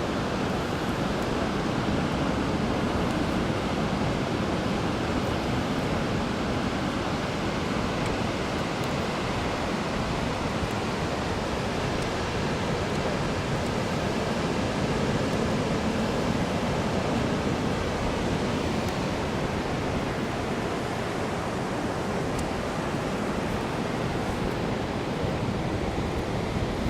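Ocean surf washing onto a beach: a steady rush of breaking waves that swells gently now and then.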